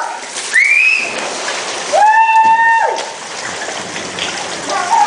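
Heavy rain pouring steadily, with children's high-pitched shrieks over it: a rising one about half a second in, a long held one about two seconds in, and a falling one near the end.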